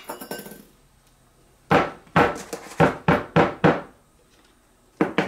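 A spoon knocking repeatedly against a peanut butter jar and a glass mixing bowl while the last peanut butter is dug and scraped out: a sharp click at the start, about seven quick knocks from just under two seconds in, then another fast run of knocks near the end.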